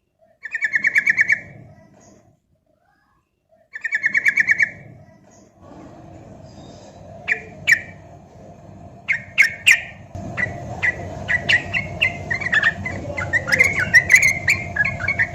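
Yellow-vented bulbul (trucukan) singing. It opens with two quick rattling bursts of rapid notes, then sings a run of chirping notes that grows busier from about ten seconds in, over a steady background hiss.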